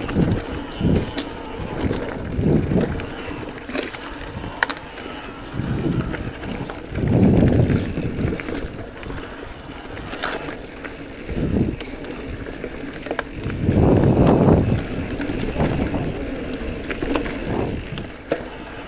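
Giant Trance E+ Pro 2 electric mountain bike ridden along a dirt singletrack: rolling tyre noise on the dirt, with scattered clicks and rattles from the bike and low rumbling surges that peak about 7 and 14 seconds in.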